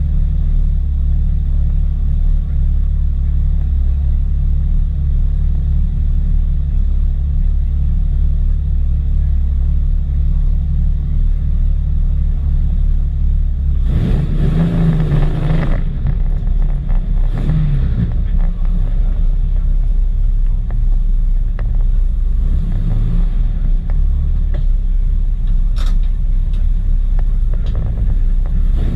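On-board sound of a Jaguar XJ6 race car's 4.2-litre straight-six engine running with a steady low drone. About halfway through there is a louder burst of about two seconds, followed by a few shorter surges.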